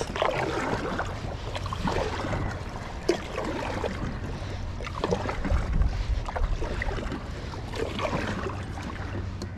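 A kayak being launched through shallow, muddy water: irregular splashing and sloshing with scattered knocks.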